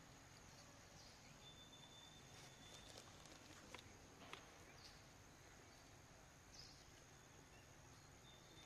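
Near silence: faint outdoor background with a steady thin high tone, and two light clicks a little under halfway in as a baby monkey grabs and handles the camera tripod.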